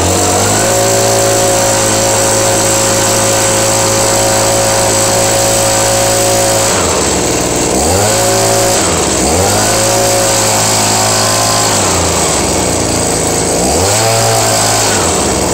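Echo PB2620 handheld leaf blower's small two-stroke engine running loudly at a steady high speed. In the second half its revs drop toward idle and climb back three times, as the throttle is let off and squeezed again.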